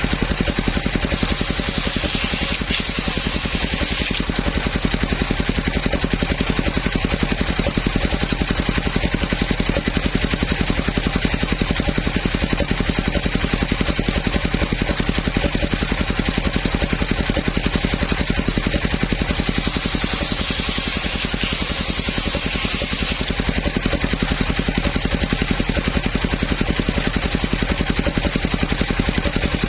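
Engine of a homemade circular sawmill running steadily with an even rapid pulse, the saw blade adding a hiss for a few seconds about a second in and again about twenty seconds in, typical of the blade passing through a coconut trunk.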